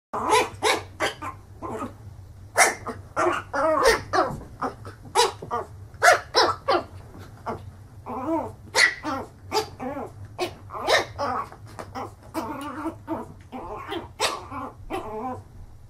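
Small fluffy puppy yapping at its own reflection in a mirror: a long string of short, high-pitched barks, about two a second in uneven clusters.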